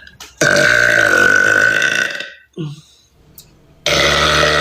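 A woman's deliberate, long, loud burps, each held at a steady pitch: one lasting about a second and a half, then a brief sound, then a second long burp starting near the end.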